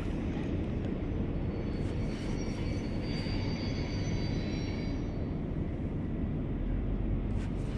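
Steady low rumble of wind on the microphone, with faint high whining tones for a few seconds in the middle of it.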